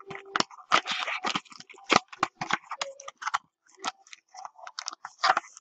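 Trading card packaging being handled: irregular crinkling and rustling with sharp little crackles as packs are taken out of the box.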